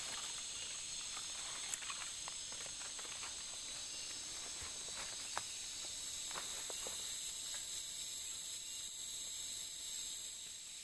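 Insects calling: a high pulsing chirp about once a second, then from about five seconds in a louder, steady high-pitched drone.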